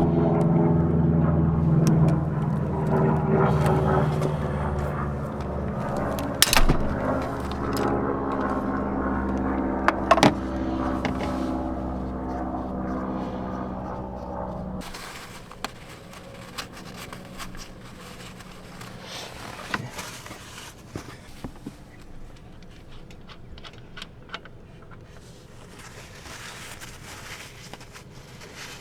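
A car engine running with a steady hum, slowly getting quieter and then cutting off abruptly about halfway through. Two sharp clicks come during the running, and a few faint ticks follow in the quieter stretch after it stops.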